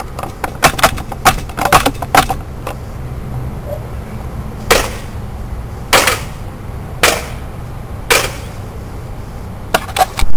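A quick run of sharp cracks, then four loud bangs about a second apart, each with a short ringing tail, and a few more cracks near the end: a PlayStation 2 console being destroyed as a mock 'repair'.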